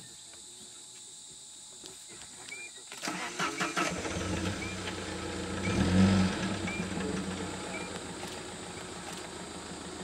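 Steady drone of crickets or cicadas. About three seconds in, a safari vehicle's engine starts, revs briefly near the middle, then settles into a steady idle.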